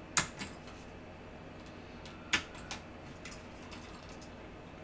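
Plastic push-pin fasteners holding a CPU heatsink to the motherboard clicking as they are twisted and pulled free: two sharp clicks about two seconds apart, each followed by a lighter tick, with faint ticks in between.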